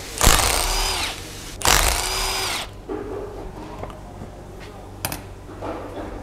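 A power tool running in two bursts of about a second each, undoing the bolts of a Nissan Silvia S15's rear differential cover, each burst winding down at its end. Then come a few light knocks and a sharp click.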